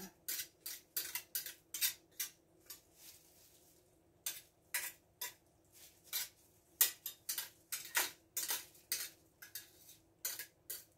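Metal spoon clinking and scraping against a stainless steel pot and glass jars as berry jam is spooned into the jars: a run of short clicks and scrapes, a few a second, with a brief lull about three seconds in.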